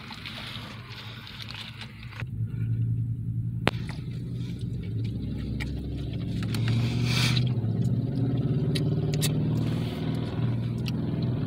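Car engine running, a steady low hum heard from inside the car's cabin that grows louder about two seconds in, with a few small sharp clicks and a brief rustle about seven seconds in.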